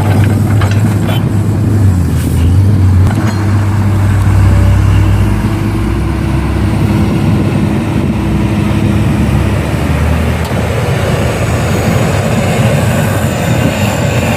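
Heavy diesel engine running at work, its low note dropping a few seconds in and then carrying on as a steady rumble.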